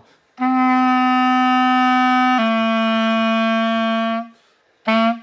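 Clarinet playing the ending of a simple tune: one long held note, then a long note a step lower. A short new note starts near the end.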